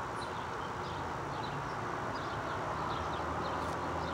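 Outdoor ambience: a steady hiss with a low hum under it, and small high bird chirps scattered throughout.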